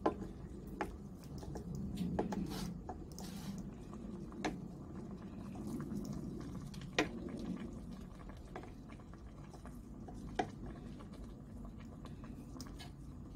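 Wet squishing as slices of cooked beef are laid into a stainless steel pan of liquid and vegetables, with a few sharp clicks from a wooden spatula against the pan.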